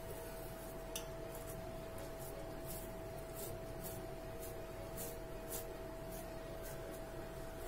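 Hands squeezing and pressing sticky sabudana vada mixture (soaked sago pearls and mashed potato) into rolls in a steel bowl: many short, soft squishing and rubbing scuffs at irregular intervals, over a steady faint hum.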